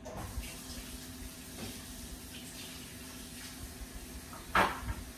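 Water running from a kitchen sink tap, then a short, loud rip near the end as a paper towel is torn off the roll.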